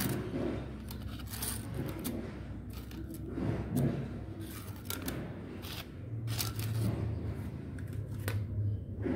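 Irregular clicks, scrapes and light rattles from a wire cage rat trap as a stiff white sheet is poked against its bars with a large rat inside.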